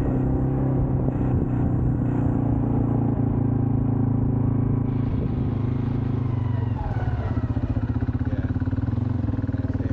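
Quad bike engine running steadily; about two-thirds of the way in its sound takes on a rapid, even pulsing.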